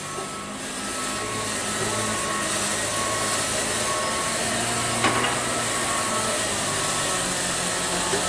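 Diesel engine of a Mitsubishi Fuso dump truck pulling as it crawls round a steep hairpin climb. The drone grows a little louder about a second in, while a short high beep repeats all through it, with one sharp click about halfway.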